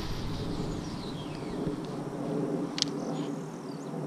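Baitcasting reel spool whirring as a cast goes out, its pitch falling as it slows, followed by a sharp click about three seconds in.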